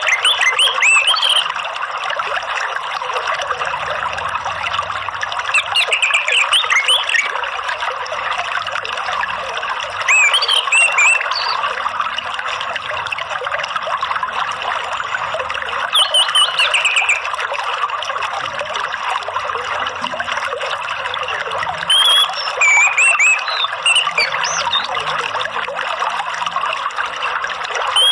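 Steady trickling, running water, with a short burst of chirpy songbird song about every five to six seconds.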